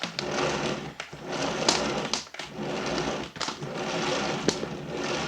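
Cord reel of a Numatic Henry HVR160-11 vacuum cleaner rattling and clicking as the power cord runs over its drum, a bit noisy, in uneven strokes about a second apart.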